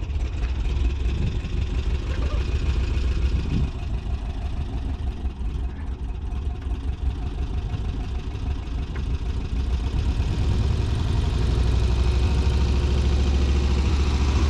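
Car engine running as the vehicle is driven off in first gear. Its low hum grows louder and steadier about ten seconds in.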